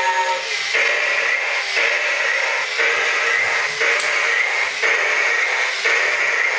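Electronic sound effect from a battery-powered toy robot's small speaker, a buzzing electronic pulse repeating about once a second, part of its scanning routine.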